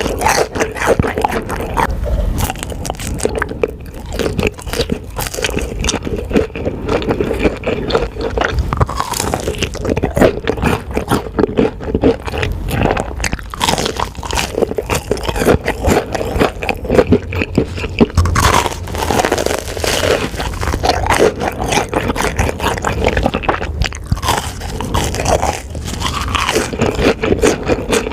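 Close-miked eating sounds: a person biting into and chewing crunchy food, with a continuous run of crackling crunches.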